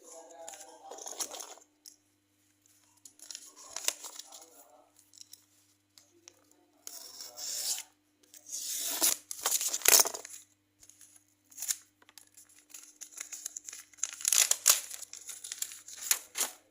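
Packaging being crinkled and torn in irregular bursts with short pauses between them, the loudest bursts about ten and fifteen seconds in.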